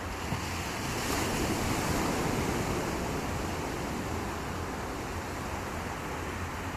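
Calm sea waves washing onto a sandy beach. One wave swells about a second in and eases off over the next couple of seconds.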